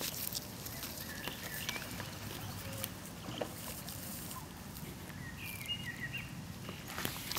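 Outdoor background noise with light rustling and small clicks as a coypu noses at the camera, and a few short high chirps about five and a half seconds in.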